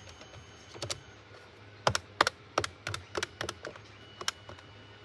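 Keys on a VTech landline phone's keypad being pressed: a quick, irregular run of sharp clicks, starting about a second in.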